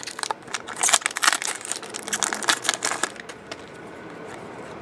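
Trading cards and pack wrappers being handled: a quick run of crinkling, rustling and clicking as cards are slid and flipped in the hands, dying down after about three and a half seconds.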